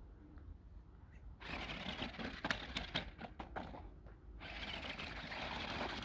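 Megalodon Storm RC stunt car driving on gravel. From about a second and a half in, its electric motors run and its tyres churn the stones, with sharp clattering knocks as the car flips over. After a brief dip near four seconds it settles into steady running.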